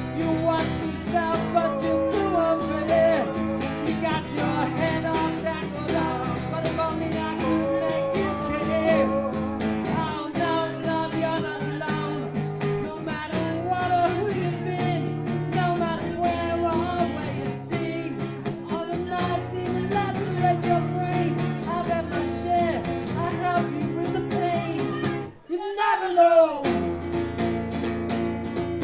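Live acoustic guitar music with a wavering melodic line over strummed chords. It cuts out abruptly for a moment about 25 seconds in, then carries on.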